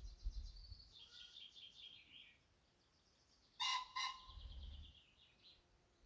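Cock common pheasant giving its loud, harsh two-note crow about three and a half seconds in, with small birds trilling high and fast behind it.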